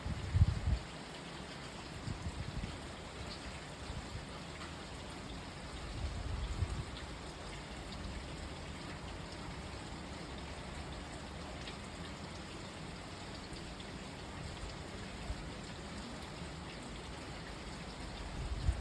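Steady rain falling, an even hiss of drops, broken by a few short low rumbles about half a second in, a few seconds later, around the middle of the first third and again at the end.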